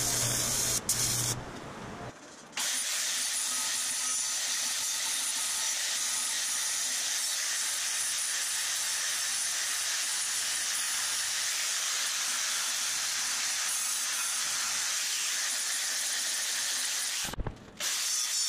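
AC TIG welder buzzing as it welds aluminum sheet for about two seconds, then after a short gap an angle grinder working the aluminum weld seam with a steady hiss, which drops out briefly near the end.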